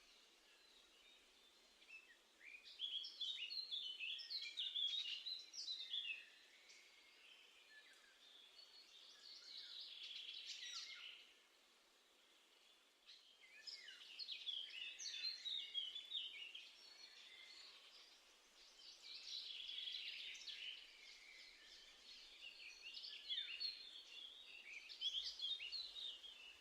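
Wild songbirds singing: phrases of quick, high, twittering notes a few seconds long, repeated with short pauses between.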